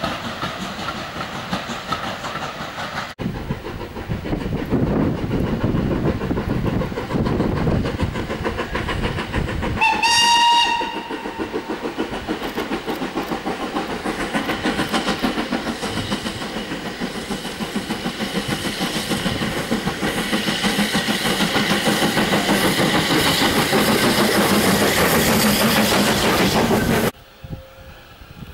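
Steam locomotive hauling a train, its wheels clattering in a rapid rhythm over the rail joints, with one short steam whistle blast about ten seconds in. The clatter grows louder towards the end, then cuts off suddenly.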